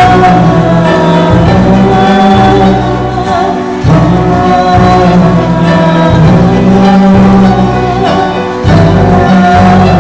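Music: a song with singing over instrumental backing and a strong bass line, loud throughout, with short breaks in the bass about four seconds in and near the end.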